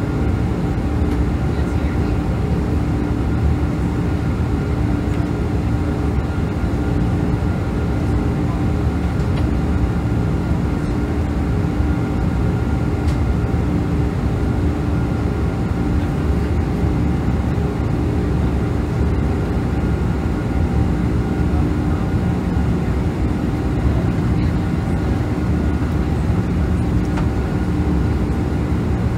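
Steady roar of a Boeing 747-436 airliner heard from inside the passenger cabin, its four Rolls-Royce RB211 turbofans and the rushing air making an unchanging drone with a faint held hum on top.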